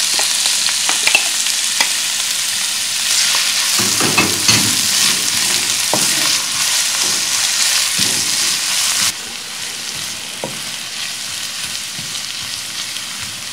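Sliced onions frying in hot oil in a pan with a loud sizzle, stirred with a spatula that scrapes against the pan. The sizzle drops suddenly to a quieter level about nine seconds in.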